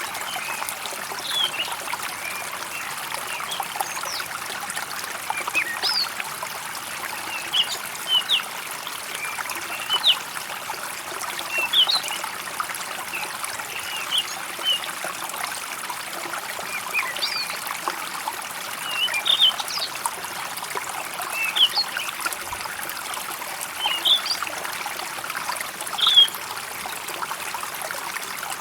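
Water trickling steadily, with small birds chirping in short calls every second or two over it.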